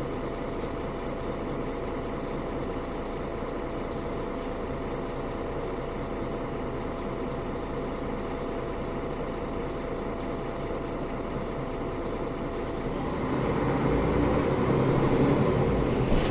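Mercedes-Benz O530G Citaro G articulated bus heard from inside the passenger cabin: the engine idles steadily with a thin steady whine over it. About three-quarters of the way in, the bus pulls away and the engine grows louder under acceleration, and the whine stops.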